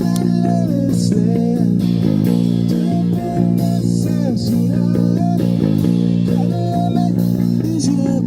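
Live rock band playing an instrumental passage: electric guitar with bending, sliding notes over bass guitar and drums.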